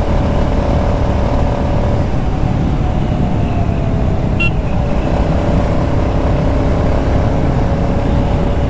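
Motorcycle engine running steadily at cruising speed on an open road, with wind rushing over the handlebar-mounted camera's microphone. A short high blip sounds about four and a half seconds in.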